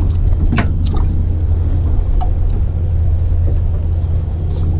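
Boat's motor idling with a steady low hum, with a few light clicks and taps over it.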